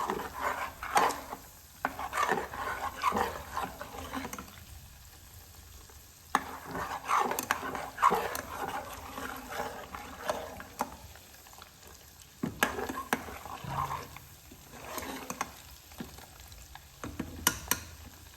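Butter bubbling and sizzling in a pot as it cooks down into desi ghee, being stirred, in irregular spells of crackling with quieter gaps.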